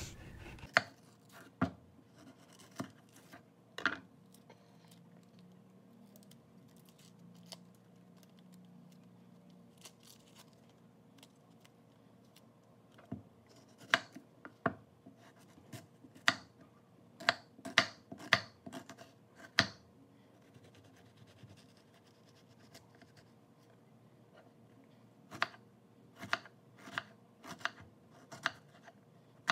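Kitchen knife cutting a white onion on a wooden cutting board: scattered sharp chops, coming in quick runs of several strokes around the middle and again near the end.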